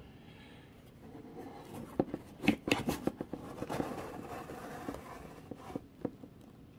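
Quiet rustling and scattered light knocks and scrapes of a person shifting closer to a table, with the sharpest knocks about two to three seconds in.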